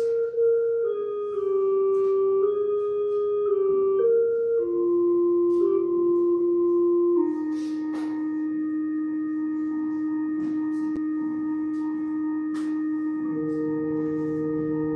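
Church organ playing a slow melody in sustained, unwavering notes. About seven seconds in it settles on a long held chord, and lower bass notes come in near the end.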